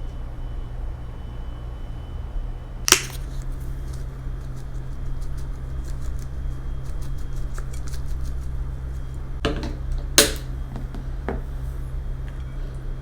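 Tableware clicking as food is handled for eating: two sharp clicks about seven seconds apart, with lighter ticks between, over a steady low hum.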